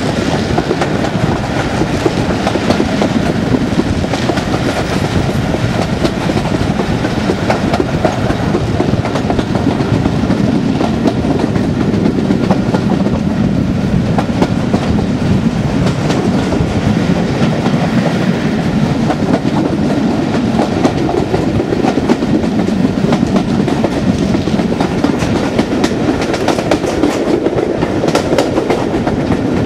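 Class 37 diesel locomotive's English Electric V12 engine working hard at the head of the train, heard from an open carriage window behind it, over the steady rumble and clickety-clack of the carriage wheels on the rails, with wind on the microphone.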